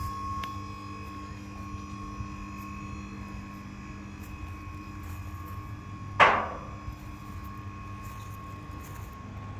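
Hydraulic power pack of a 5-ton four-cylinder scissor lift running with a steady hum as the platform raises a car. About six seconds in, a loud, sharp burst rings out and fades within about half a second.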